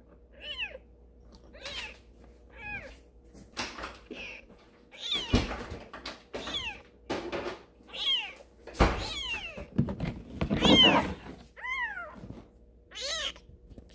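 A newborn kitten mewing repeatedly: about a dozen short, high-pitched mews that fall in pitch. Two dull knocks sound about five and nine seconds in.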